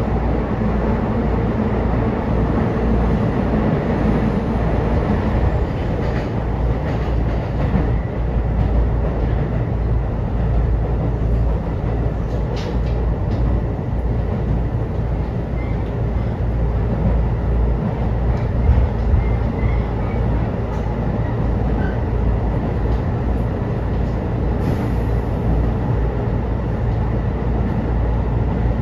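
Running noise heard inside an Aonami Line 1000-series electric train car while it travels between stations: a steady low rumble of wheels on track, with a few light clicks in the middle.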